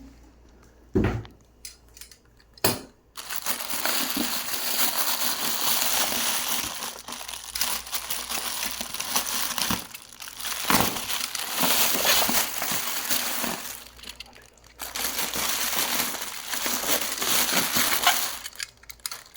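Packaging being handled and unwrapped: a few knocks in the first three seconds, then continuous crinkling and crushing of wrapping material, pausing briefly twice.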